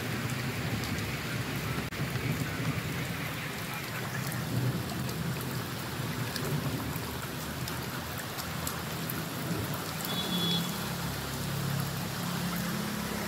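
Heavy rain falling steadily, with scattered sharp ticks of drops and a low steady hum underneath.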